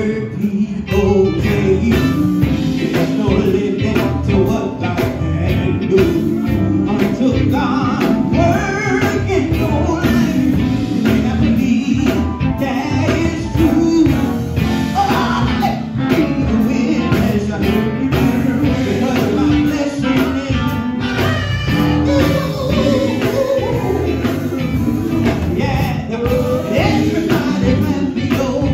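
Live gospel band: a male lead singer sings through a microphone over electric bass and electric guitar, with a steady beat.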